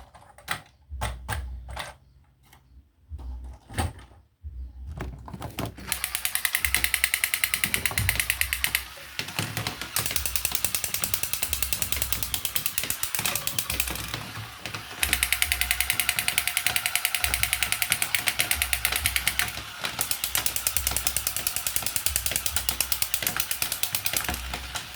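A small toy's mechanism rattling: a few scattered clicks of handling, then from about six seconds in a fast, steady run of clicks that eases briefly twice.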